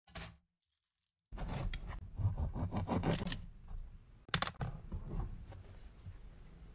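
The crisp crust of a freshly baked whole wheat ciabatta crackling and rasping as the loaf is cut, for about two seconds, followed by a shorter sharp crackle of the crust about four and a half seconds in.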